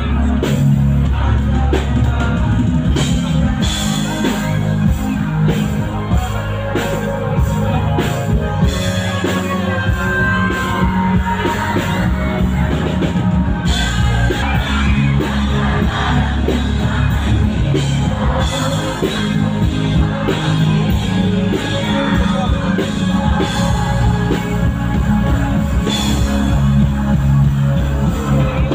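Live rock band playing loudly through a concert PA: drum kit, heavy bass and a singer.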